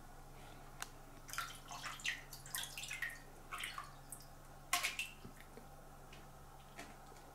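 Cat pawing at the water in a toilet bowl, fishing for wet toilet paper: a run of small, irregular splashes and drips, with a louder pair of splashes about five seconds in.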